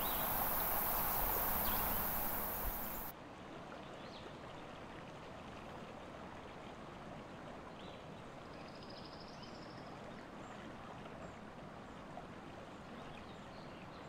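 Steady rushing outdoor ambience that drops abruptly to a quieter, even hiss about three seconds in, with a few faint high chirps later on.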